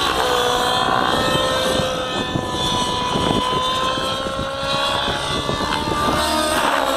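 Align T-Rex 700 Nitro RC helicopter in flight: its two-stroke glow engine and rotors give a steady, loud whine. The pitch dips briefly just after the start and again near the end as it manoeuvres.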